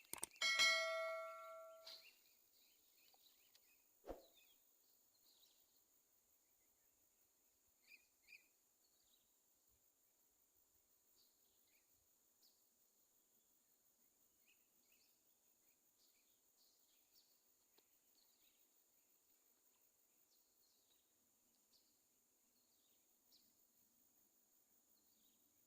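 Quiet outdoor ambience with faint, scattered high chirps. Near the start a loud metallic ding rings for about a second and a half, and a single sharp click follows a couple of seconds later.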